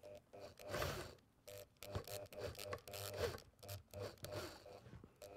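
Electric drill run slowly, its bit scraping and rubbing into pallet wood to cut a shallow counterbore. The sound is quiet and comes in short, irregular bursts.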